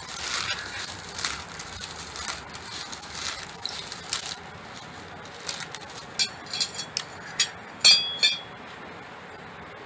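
Bundle of dry coconut-leaf ribs rustling and crackling as it is rolled and bound tight with twine. Later come a handful of sharp clicks and taps, the loudest about eight seconds in.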